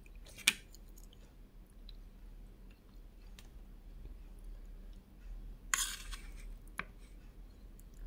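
Metal spoon on a plate of rice: a sharp click about half a second in, and a short scrape about two thirds of the way through followed by another click, with soft chewing between.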